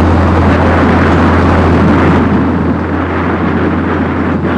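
Steady low drone of a river launch's engine, heard from the open deck under a loud even rushing noise.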